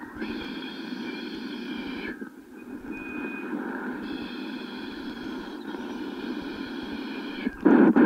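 Shortwave AM band noise hissing from the loudspeaker of an AOR AR5000A communications receiver in a gap between transmissions. A set of steady high whistles from interfering carriers comes in, drops out for about two seconds, and comes back. A louder burst of signal arrives near the end.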